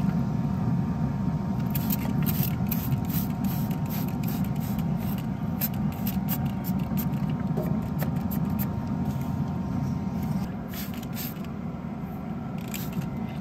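Plastic trigger spray bottle squeezed again and again, short hissing squirts spritzing a pork shoulder on a smoker with a vinegar-and-sugar mix to keep it moist. A steady low rumble runs underneath.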